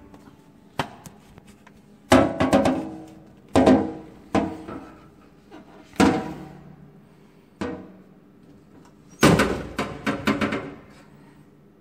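The metal pull-down chute of a USPS mail collection box clanging open and shut again and again as stacks of envelopes are pushed in. Each clang rings briefly, and two clusters of quick knocks come about two seconds in and near the end.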